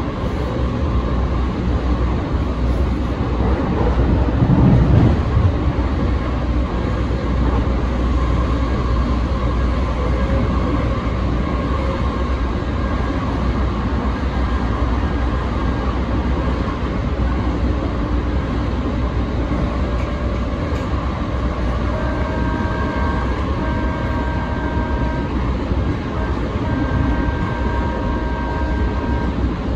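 Siemens light-rail trolley car running along the track, heard from the driver's cab: a steady rumble of the wheels and running gear, briefly louder about five seconds in. Near the end a steady tone sounds in several stretches of a second or two each.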